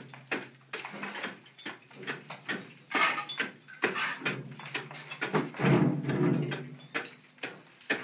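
Hand pick striking the soft rock of a cave wall, rapid repeated blows about two or three a second as the wall is chipped back. A low steady tone comes and goes underneath.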